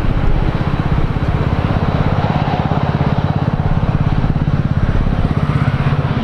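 Boeing 737-400's CFM56 jet engines running at taxi power as the airliner taxis past, a steady low rumble with a fast, even flutter.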